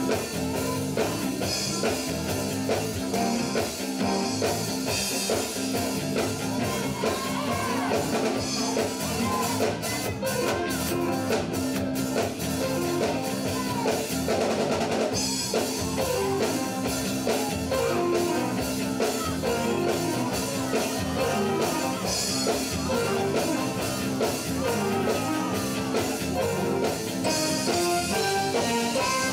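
Live band with electric guitars and a drum kit playing an upbeat rock-style song with a steady beat.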